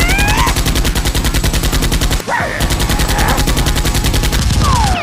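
Rapid automatic gunfire, a fast even stream of shots, in the manner of a dubbed machine-gun sound effect; it breaks off briefly about two seconds in and then carries on.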